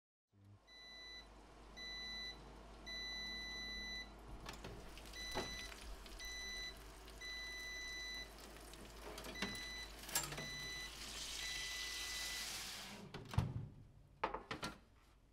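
Breville Joule Oven Air Fryer Pro's electronic beeper sounding a repeating pattern of two short beeps and one long beep, about three times over, signalling that the cooking step is done. Over it the oven door opens and the metal pan with the roast chicken is slid out with a scrape and set down with a few clunks near the end.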